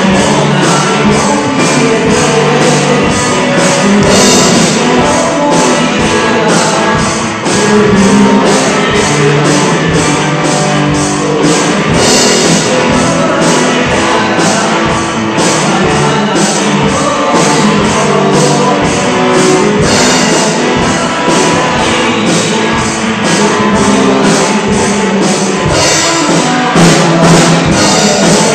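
Loud up-tempo rock song with a fast drum beat and a male singer's voice.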